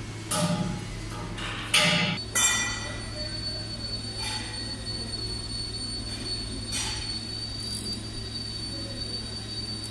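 Hand tap in a tap wrench cutting a 1/2-inch thread in an air compressor casing, squealing three times in short bursts as it is turned in the first two and a half seconds. After that a thin steady high whine and a low hum carry on.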